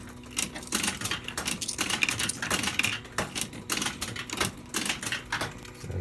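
Rapid, irregular clicking and clatter of coins being fed into an Electrocoin Bar-X fruit machine and dropping through its coin mechanism.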